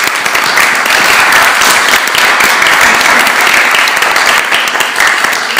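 Small audience applauding steadily at the close of a talk, a dense patter of many hands clapping.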